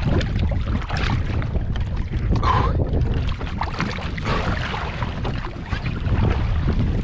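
Sea water sloshing and splashing against a catamaran hull as a sailor in the water hauls himself aboard by the capsize righting line, with wind buffeting the microphone in a low, uneven rumble.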